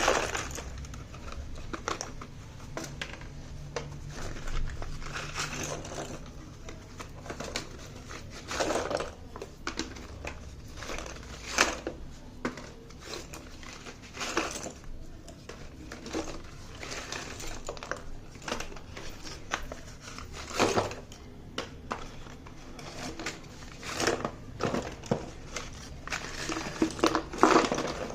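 Parcel packaging being handled and opened: irregular crinkling and rustling, with scattered sharp clicks and taps.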